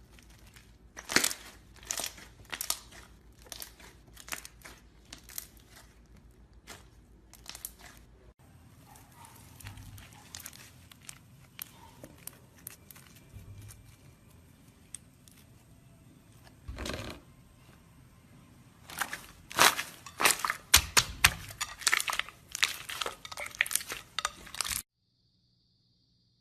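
Hands squeezing and working slime, giving runs of crinkling, crackling pops and clicks, thickest and loudest in the last few seconds before it cuts off suddenly.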